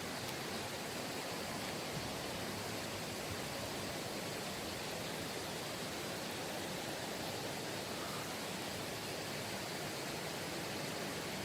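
Steady rushing of a mountain valley stream: an even hiss of flowing water with no breaks.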